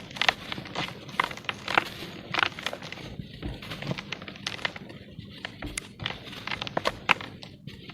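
Lumps of pure cement being crumbled, with a dense, irregular run of crisp cracks and snaps.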